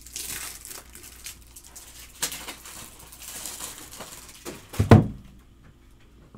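Rustling and scraping of card packaging handled at a table, in several short spurts, then a loud thump just before five seconds in as something is set down.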